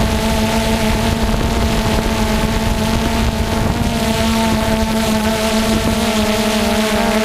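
Steady, unchanging hum of a small engine running at constant speed, with wind rumbling on the microphone.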